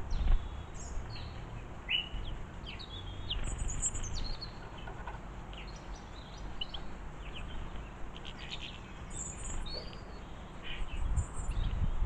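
Small garden birds calling: many short chirps and twitters scattered through, over a low rumble.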